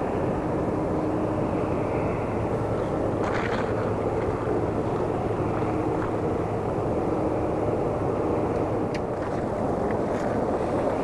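Distant Boeing 757-200's twin Rolls-Royce RB211-535E4B turbofans heard as a steady low noise as the jet rolls out on the runway after landing.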